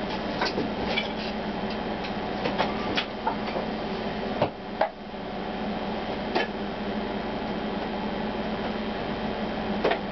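A steady low hum with a few scattered light clicks and knocks, the loudest pair about four and a half to five seconds in.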